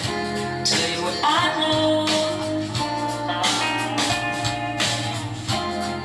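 A recorded song with guitar and a sung voice, played back as a sound check of a Soviet P70 germanium transistor power amplifier after repair.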